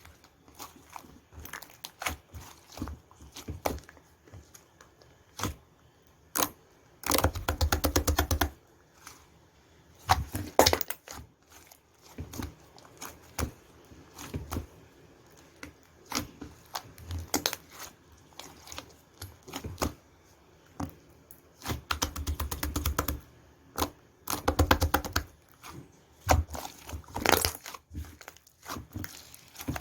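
Hands squishing and stretching clay-mixed slime, giving scattered sharp clicks and pops, with several bursts of rapid clicking as the slime is pressed and pulled.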